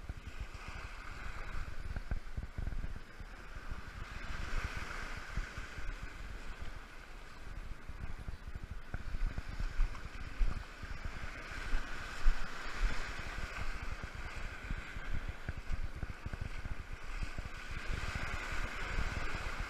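Ocean surf breaking and washing over the shoreline, swelling and fading, with wind buffeting the microphone.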